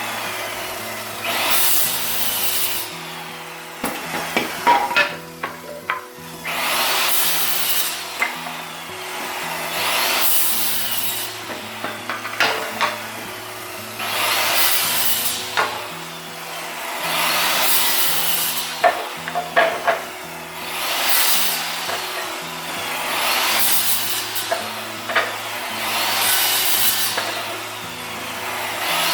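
Scrap lumber being sawn in long rasping strokes that come about every three seconds, with sharp knocks between them. Background music with steady low notes plays underneath.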